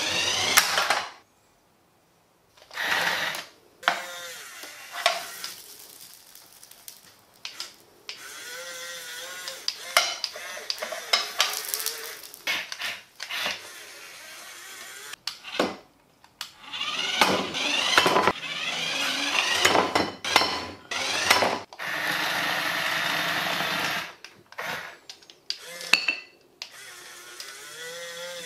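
Huina remote-control toy excavator's electric motors whining with wavering pitch as the arm and bucket move, mixed with the plastic bucket scraping and knocking against a nonstick electric griddle pan. It comes in bursts that stop abruptly several times.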